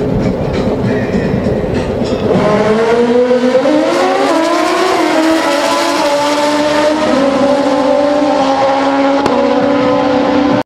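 Two drag-racing sport bikes launching and running hard down the strip. After about two seconds of rough noise, the engines scream up in pitch, and the pitch drops back at each gear change, several times over.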